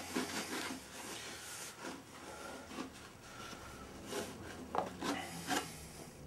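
A cloth towel rubbing and wiping a freshly washed fibreglass moulding dry, a steady scuffing with a few light knocks near the end.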